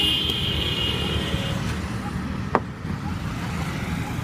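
Street traffic noise, a steady low rumble. A steady high-pitched tone sounds for the first second and a half, and there is a single sharp click about two and a half seconds in.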